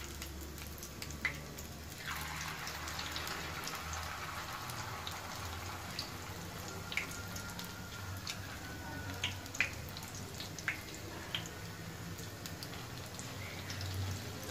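Vegetable patties shallow-frying in hot oil in a pan: a steady sizzle that grows fuller about two seconds in, as a second spoonful of batter goes into the oil. Scattered sharp pops and crackles come from the spattering oil.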